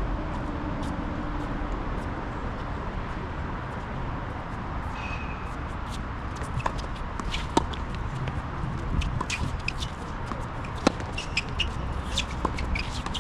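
Steady outdoor background noise with scattered light clicks and two sharper knocks, about seven and a half and eleven seconds in.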